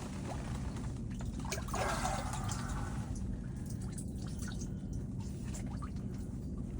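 Water splashing and dripping around a sturgeon at an ice-fishing hole, with a brief louder splash about two seconds in, over a steady low rumble.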